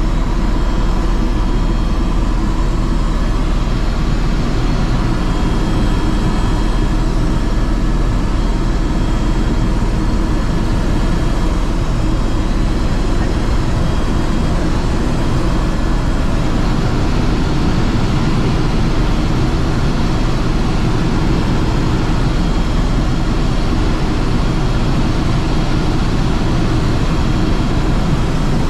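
Airbus H130 helicopter in level flight, heard from inside the cabin: a loud, steady rumble from rotor and engine with a faint constant whine above it.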